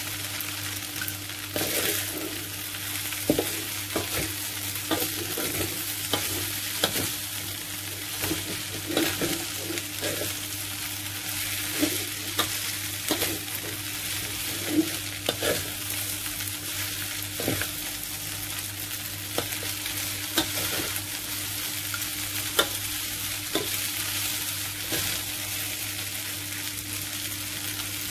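Rice noodles and vegetables sizzling in a hot steel wok while being stirred and tossed, with frequent scrapes and taps of a metal spatula against the wok. A steady low hum runs underneath.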